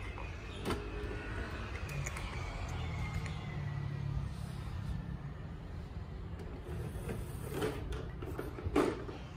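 Plastic Bruder MAN TGS toy garbage truck rolled across cardboard on the floor, its wheels making a low rumble. Two sharp knocks come near the end.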